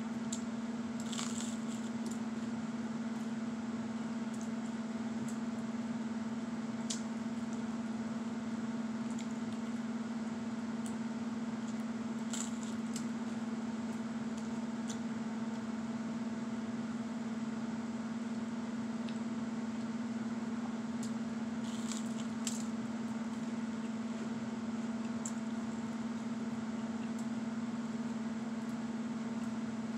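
Crunchy buttered-and-sugared toast being bitten and chewed: a few scattered, faint crunches and clicks. Under them, a steady low hum runs throughout.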